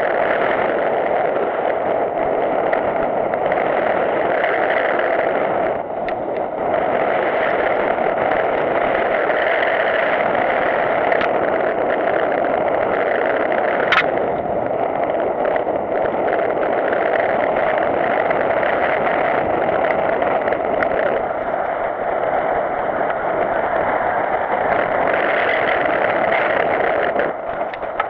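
Steady wind and trail noise from an action camera on a mountain bike descending a loose dirt and gravel singletrack: tyres on the surface and the rattle and buffeting of the camera housing. A single sharp click, a stone strike or chain slap, about halfway through.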